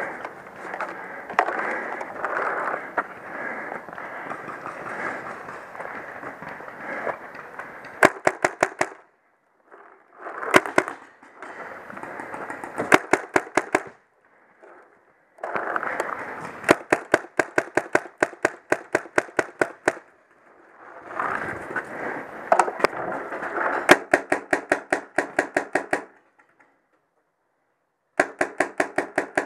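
Paintball markers firing in strings of quick, sharp pops, several shots a second. There are about six bursts, with brief silent gaps between them.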